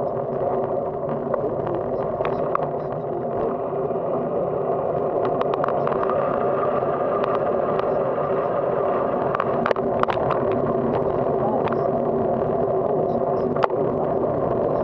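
Riding noise picked up by a bicycle's handlebar-mounted camera: a steady rush of wind and tyres rolling on rough asphalt, with scattered clicks and knocks from the bike and mount jolting over cracks, the loudest knock near the end.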